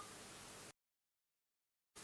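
Near silence: a faint steady hiss that cuts out to complete silence less than a second in, returning just before the end.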